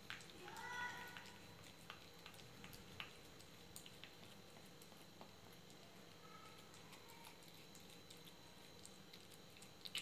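Young cat eating wet pâté cat food from a plastic bowl: faint, wet chewing and licking clicks. A short pitched squeak about a second in is the loudest sound.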